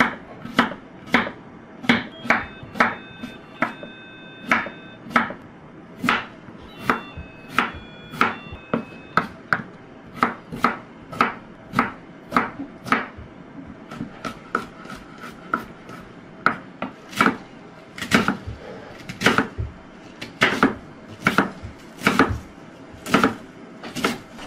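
A kitchen knife chopping vegetables (carrot, daikon radish and cabbage) on a wooden cutting board, in steady strokes of about two a second.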